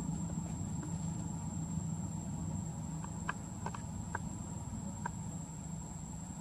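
Outdoor ambience: a steady low rumble under a constant high-pitched insect drone, with a few short, faint chirps a little past the middle.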